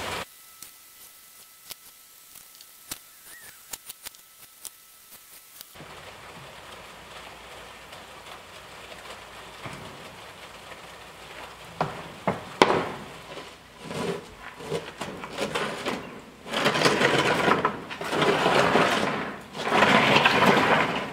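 Hand work on a wooden-frame, chicken-wire coop: scattered light clicks and knocks at first, then heavier wooden knocks and long bursts of rough, rustling noise over the last several seconds.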